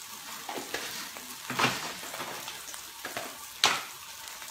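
Pounded dried chili, shallots and dried shrimp frying in oil in a steel wok, a steady sizzle. A few sharp clicks sound over it, the two loudest about two seconds apart.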